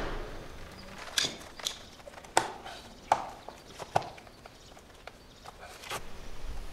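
A handful of sharp, irregularly spaced clicks and knocks as a caulking gun is picked up and worked to run sealant.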